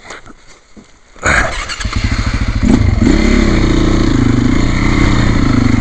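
Trail motorcycle engine starting about a second in, then running steadily.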